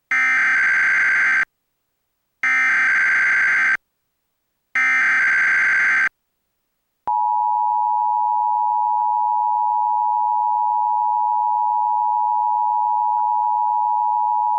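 Emergency Alert System data header: three identical bursts of warbling digital data tones, each about a second and a half long and spaced about a second apart. About seven seconds in, the steady two-tone EAS attention signal starts and holds. This is the coded opening of an EAS Required Monthly Test, before the voice message.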